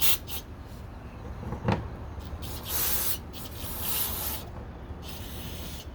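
Aerosol brake cleaner sprayed in several short hissing bursts to flush hard grease off a metal part. A single light knock about a second and a half in.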